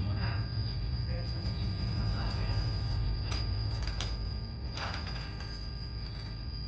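Faint, indistinct voices over a steady low hum and a thin, steady high-pitched tone, with a few light clicks near the middle.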